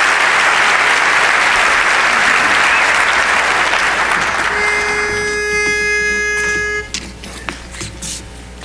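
Audience applause fading out over the first few seconds, then a single steady note of about two seconds, with a clean stack of overtones, typical of a barbershop quartet's pitch pipe giving the key for the next song.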